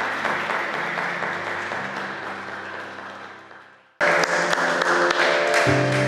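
Guests applauding over instrumental music. The sound fades away over the first four seconds, then the applause and music cut back in suddenly.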